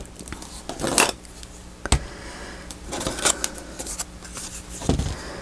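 Paper and card being handled on a work table: rustling with several sharp clicks and taps, one crisp click about two seconds in.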